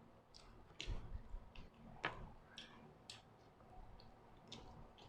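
Faint chewing of buffalo chicken wings: irregular wet mouth smacks and clicks, with a sharper click about two seconds in.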